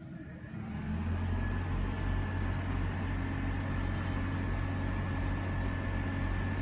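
Vehicle engine idling steadily, coming up about a second in.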